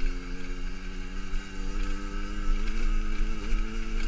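50cc enduro motorcycle engine running at steady, moderate revs while riding, with a slight dip in revs near the end, over a low rumble of wind on the helmet microphone.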